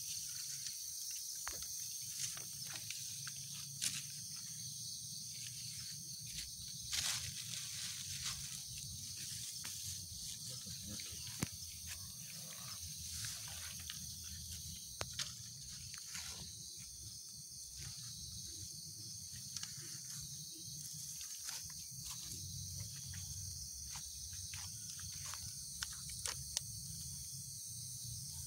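Steady high-pitched insect chorus, such as crickets, droning without a break, with scattered short clicks and rustles of plastic bags and food being handled close by.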